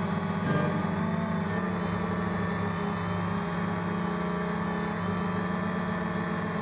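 DJI Phantom quadcopter's electric motors and propellers buzzing steadily in flight, picked up by the GoPro mounted on the drone, the pitch wavering slightly.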